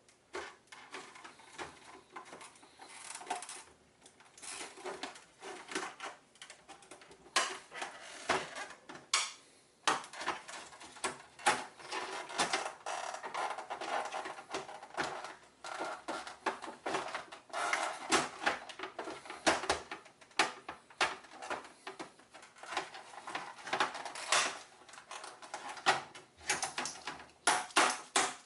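Tools working at the plastic casing of a Toshiba Touro external hard drive: rapid, irregular clicks, knocks and scraping, with harder taps coming thick and fast through the second half as the housing is forced apart.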